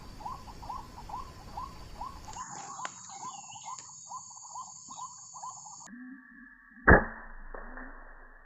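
White-breasted waterhen calls: short squeaky notes repeated about three a second, then lower croaking notes. About seven seconds in comes a single sharp, loud crack of an air-rifle shot.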